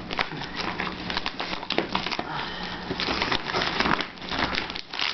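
Heavy brown paper wrapping on a cardboard box being ripped and cut open with a small knife: a continuous run of tearing, crinkling and scraping.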